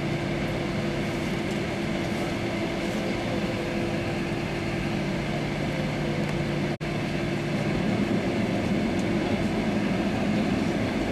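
Airliner cabin noise beside the wing on the runway: the jet engines' steady hum over a low rumble. The sound cuts out for an instant about seven seconds in, after which the rumble is a little louder.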